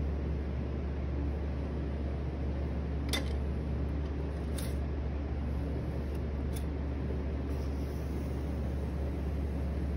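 Electric pottery wheel running with a steady low hum while a wooden tool works the base of a thrown clay vase, with three faint clicks.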